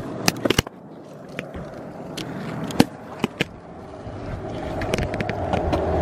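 Wheels rolling fast over pavement, with sharp clicks and knocks about half a second in and scattered ticks after them. The rolling rumble grows steadily louder toward the end.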